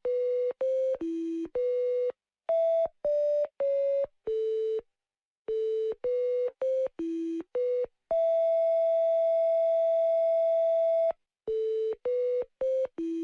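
Synthesized telephone-style beeps playing a simple tune: short electronic beeps of about half a second at a few different pitches, broken near the middle by one long held beep of about three seconds, then more short beeps.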